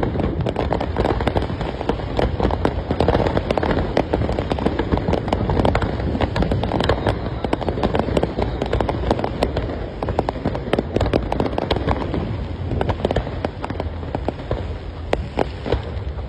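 Fireworks display: a dense, unbroken barrage of rapid bangs and crackles, many a second, over a continuous low rumble.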